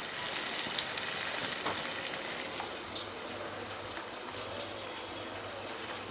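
Karamcha fruit frying in hot mustard oil in a pan: a steady sizzle, a little louder in the first second and a half, with a few faint pops.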